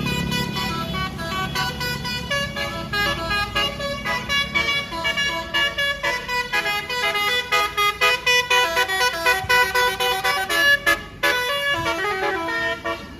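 A bus's Basuri telolet multi-tone air horn plays a melody of short, stepped notes in quick succession. A low rumble underneath fades after the first few seconds.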